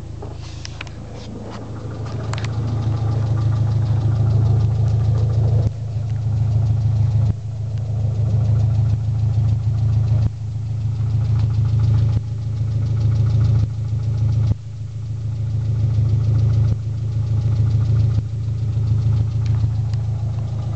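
Mitsubishi Eclipse engine running with a steady hum and a fast ticking and knocking over it, a noise whose cause the owner does not know. The level swells and drops back sharply about every two seconds.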